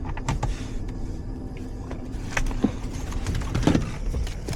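Low, steady rumble of a vehicle engine idling, with a few scattered clicks and knocks.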